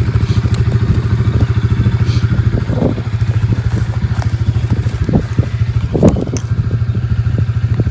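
Farm bike engine idling steadily, with a few faint clicks and knocks over it.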